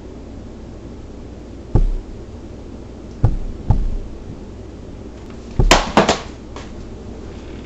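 A series of hard thumps over a steady hiss: one about two seconds in, two close together a little later, then a louder burst of two or three near the end.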